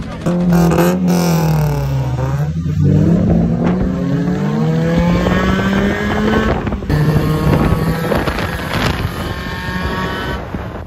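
Car engine revving and accelerating as the car pulls away, its pitch rising and falling again and again as it runs up through the revs, heard from inside the car.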